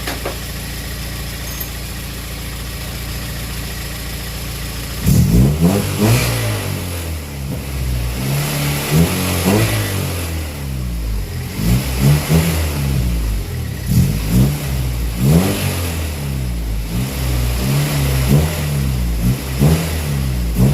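1997 Honda Civic LX's 1.6-litre four-cylinder engine idling steadily, then revved repeatedly in short blips from about five seconds in. It makes a weird noise that the owner takes for a bad valve in the cylinder head.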